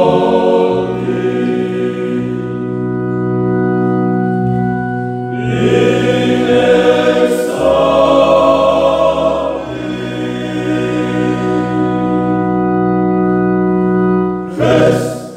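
Male choir of friars singing a sacred song in harmony, holding long sustained chords. A final loud chord near the end is cut off sharply.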